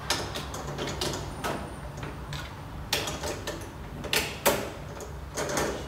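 Plastic toy gears being pressed onto pegs on the side of a plastic baby walker: several irregular clicks and knocks of hard plastic on plastic.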